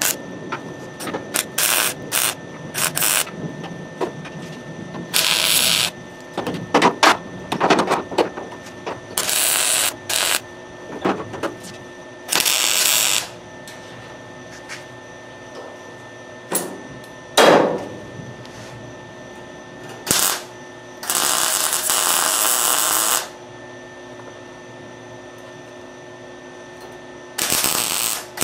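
MIG welder crackling on sheet-steel body panels in a string of bursts: quick tack welds in the first few seconds, then longer welds of one to two seconds with pauses between. A single heavier knock sounds about two-thirds of the way through.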